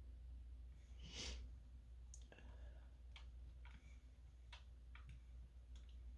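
Faint, irregular clicks from working at a computer, about nine in five seconds, over a low steady hum. A short rush of noise comes about a second in.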